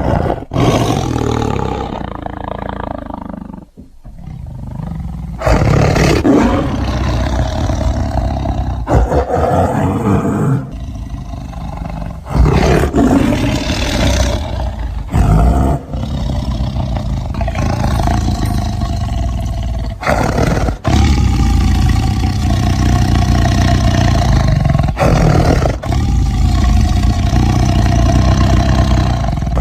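Tiger roaring and growling in a string of loud, deep calls, spliced together from separate recordings with abrupt cuts every few seconds.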